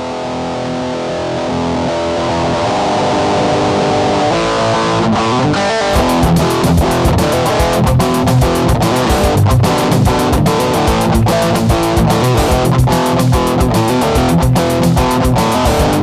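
Background music: electric guitar playing sustained chords that swell in, joined about six seconds in by a steady drum-machine beat.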